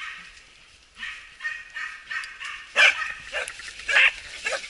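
Hunting dogs yelping and whining in short, high-pitched cries, which become louder and sharper from about halfway through.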